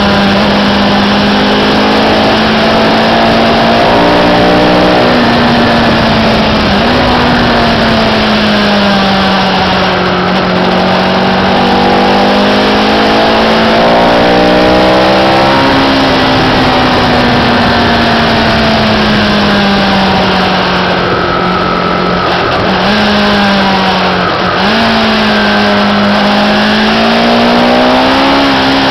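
Sport motorcycle engine under way against heavy wind rush. The engine note rises and falls with the throttle, with quick jumps in pitch at gear changes around five and seven seconds in, about fifteen seconds in, and twice more a few seconds before the end.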